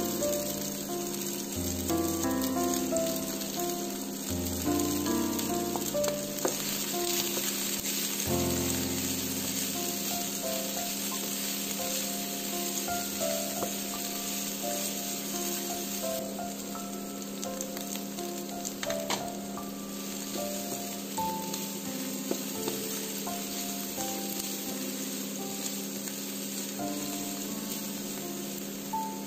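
Shredded cabbage, beans and carrot sizzling in hot oil in a frying pan, stirred and tossed with a wooden spatula.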